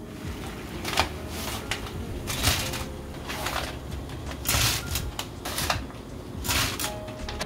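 Water boiling in a frying pan with a bundle of dried noodles just added: a steady bubbling rumble with irregular crackling bursts every second or so.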